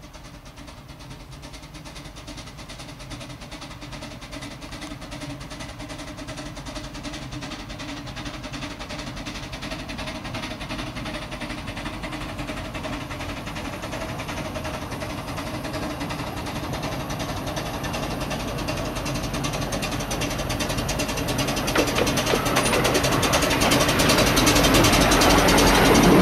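A 12¼-inch gauge miniature steam locomotive runs along the track toward the listener, growing steadily louder as it approaches and passing close near the end.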